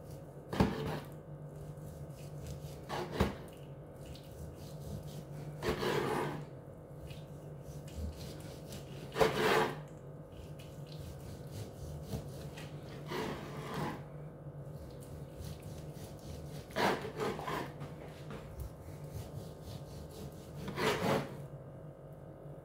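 Carving knife sawing slices off a roast pork shoulder on a wooden chopping board: about seven separate strokes a few seconds apart, over a steady low hum.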